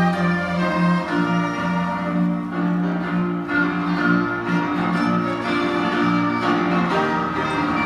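Live instrumental music of bowed strings, with cello and violin, playing slow held notes over a steady low note.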